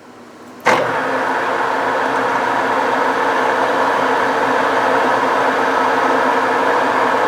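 Metal lathe switched on less than a second in, then running steadily with an even mechanical hum and whir.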